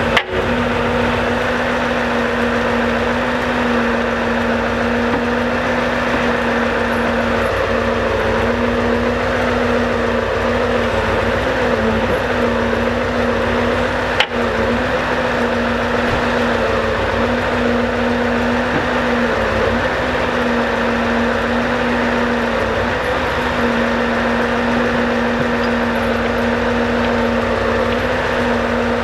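Scania R650 timber truck's V8 diesel running steadily while it drives the Palfinger timber crane's hydraulics, a constant droning hum with a steady pitch. A short click about halfway through.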